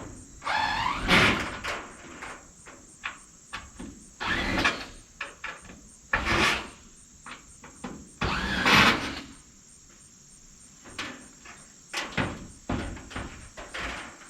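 Wooden board scraping and knocking as it is slid and set into place: four loud scrapes, each about a second long, some with a squeaky pitch that rises and falls, among scattered knocks.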